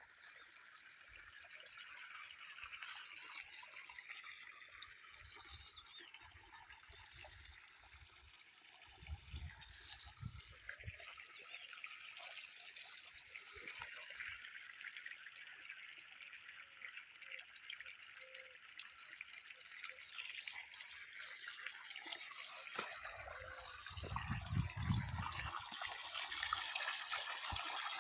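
Water running and trickling steadily, growing gradually louder, with brief low rumbles about a third of the way in and again near the end.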